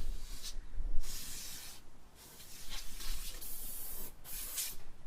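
Aerosol spray can hissing in several short bursts as lubricant is sprayed onto old, brittle rubber door seals to soften them.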